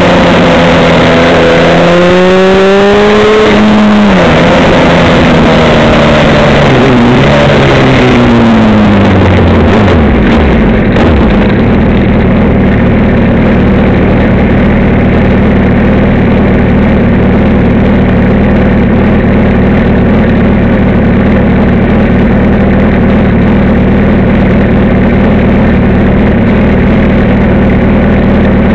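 Engine of the vehicle carrying the camera, close and loud. For the first few seconds it rises and falls in pitch with the throttle, then winds down as the vehicle slows. From about eleven seconds in it idles steadily while stopped.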